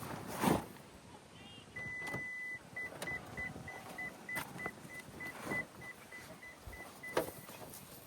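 A car's electronic warning chime: one long beep, then a fast run of short, evenly spaced beeps at the same pitch, about three a second, that stops near the end. A dull thump comes just before the beeping, with a few knocks and handling sounds along the way.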